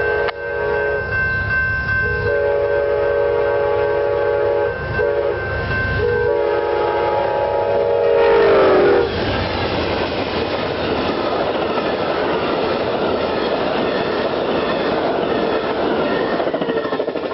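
A GE P42DC-led Amtrak passenger train sounding its multi-chime horn for a level crossing in several blasts, long, long, short, long. The last blast drops in pitch as the locomotive passes, about nine seconds in. After that comes the steady rolling rush and clickety-clack of the double-deck Superliner cars going by at speed.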